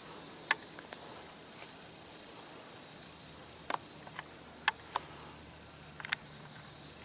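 A steady, high-pitched insect chorus, like crickets trilling, with a few scattered sharp clicks.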